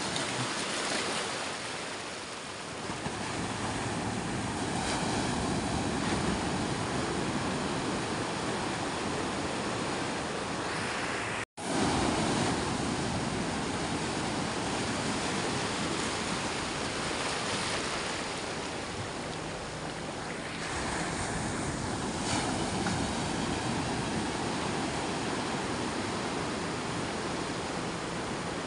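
Sea waves rushing and wind buffeting the microphone, a steady noisy wash, with a brief total break in the sound just under halfway through.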